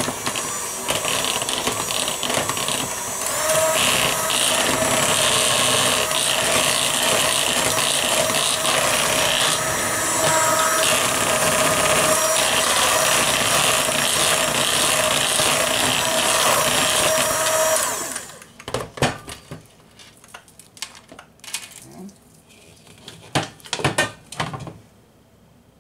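Electric hand mixer running steadily with a whine, its beaters working thick cake batter as the flour mixture is blended in; it gets louder about three seconds in and is switched off about eighteen seconds in. After it stops, a few scattered knocks and clatters against the bowl.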